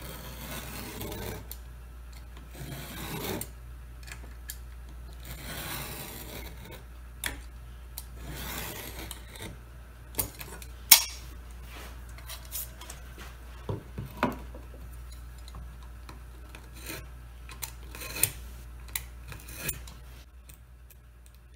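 A knife blade drawn along a steel straightedge, scoring through the top layer of mahogany veneer in several scraping strokes, followed by a series of sharp ticks and taps.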